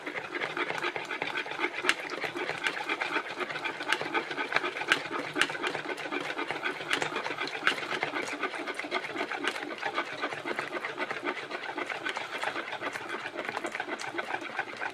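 A utensil beating eggs fast in a plastic mixing bowl: a steady, quick scraping rhythm with sharp clicks against the bowl. The eggs are being stirred fast while hot boiled honey is poured in a thin stream, to keep them from scrambling.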